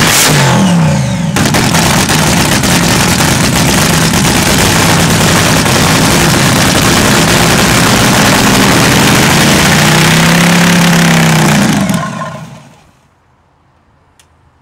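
Daimler hemi V8 of a nitromethane dragster running loud on its first run in ten years with a new fuel pump, blipped up and down on the throttle in the first second, then held at high revs. About twelve seconds in it is shut off and dies away within a second.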